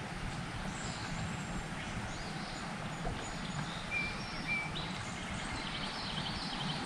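Outdoor ambience: a steady low rumble, with two short bird chirps about four seconds in and a quick run of higher chirps near the end.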